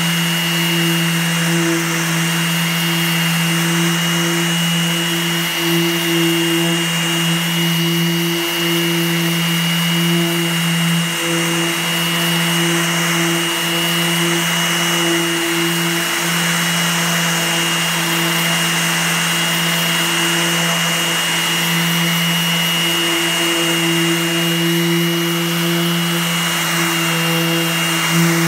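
DeWALT random orbital sander with 120-grit paper running steadily against the painted fibreglass hull of a sailboat, sanding dried Rust-Oleum paint. The dust-collection vacuum hooked to it runs at the same time, adding a thin whine and hiss. The hum dips briefly a few times.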